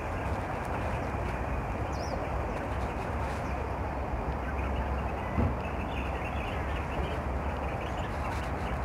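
Steady outdoor background noise with a few faint bird chirps, and a single thump about five and a half seconds in.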